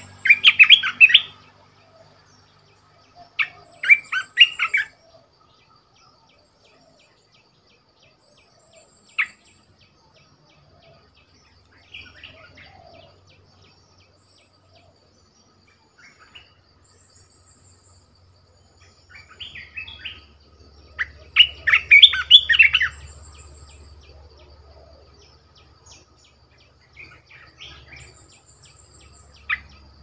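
Caged decoy bulbul singing in short, separate bursts of quick, jumbled notes a few seconds apart, the longest and loudest burst about two-thirds of the way through.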